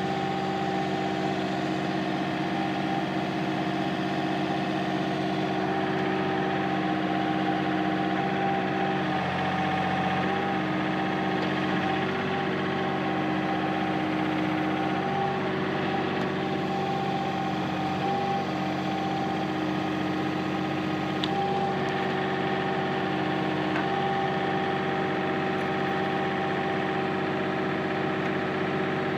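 Takeuchi TB135 compact excavator's diesel engine running steadily, with tones in its sound that shift and break off now and then.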